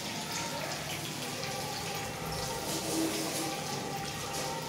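Kitchen tap running into a sink as something is rinsed under the water.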